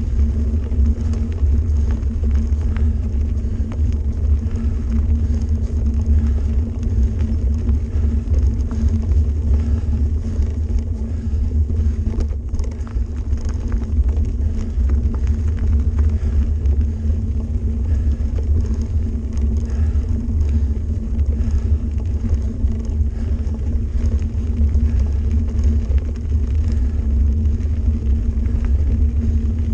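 Mountain bike rolling along a hard dirt forest road, heard as a steady low rumble of tyres and frame vibration picked up by a camera mounted on the bike.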